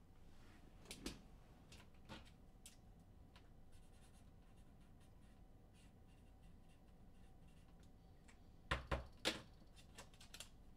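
Near silence with faint handling of trading cards and packs: soft scrapes and taps, then three sharper clicks in quick succession near the end.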